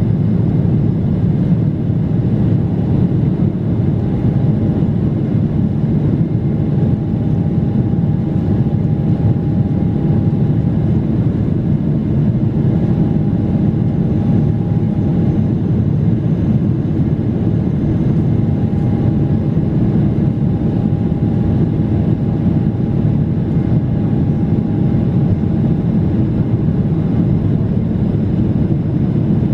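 Steady cabin roar inside a Boeing 777-300ER, its GE90 jet engines and the airflow running evenly, with a faint tone that comes and goes.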